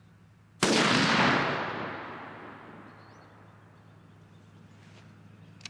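A single shot from a Christensen Arms MPR short-barrelled .308 rifle fitted with its factory muzzle brake, about half a second in. The loud report rolls away and fades over about two seconds.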